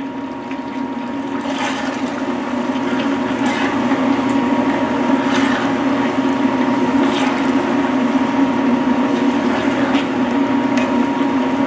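Portable induction cooktop humming steadily under a pan of simmering curry. Wooden spatulas scrape softly through the vegetables about every two seconds as they stir.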